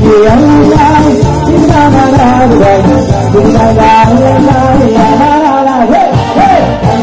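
Loud amplified live dance music: an electronic keyboard playing with a male singer singing into a microphone.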